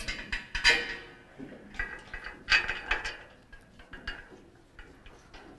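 Metallic clinks and rattles of steel bolts and washers being handled and threaded by hand into the sheet-steel legs and shelf of a workbench. The clinks come in a few clusters, loudest about a second in and again around two and a half seconds in.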